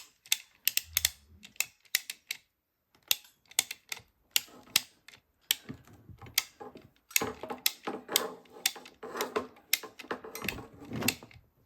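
PEX pinch-clamp crimping tool clicking again and again as its handles are worked, crimping a 1/2-inch pinch clamp onto PEX tubing until the clamp is tight. The clicks come faster and closer together from about seven seconds in.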